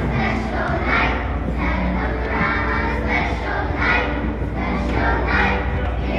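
A group of young children singing together, with a pulse of sung syllables about twice a second, over audience murmur.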